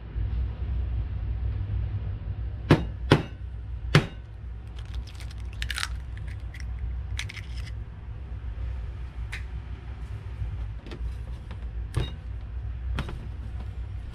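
An egg cracked open with three sharp taps against a hard edge, followed by lighter clicks of shell and utensil against an aluminium saucepan, over a steady low hum.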